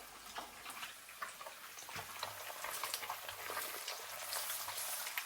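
Food frying in a pan: a steady sizzle with many small crackles.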